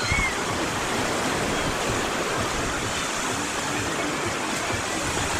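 Sea of Azov surf washing steadily onto a beach, a continuous rush of waves.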